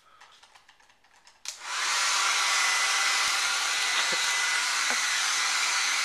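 Handheld hair dryer switched on with a click about a second and a half in, then blowing steadily, a loud even rush of air with a faint high whine.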